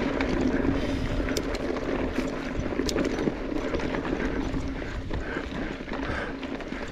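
Specialized Stumpjumper EVO mountain bike rolling over a rough dirt trail: continuous tyre and frame rattle with a steady low hum, and scattered sharp clicks and knocks from stones and the chain.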